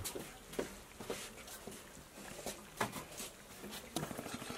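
Faint, scattered clicks and scrapes of a metal spatula against a blackened wok and a steel plate as fried pork intestines are dished out.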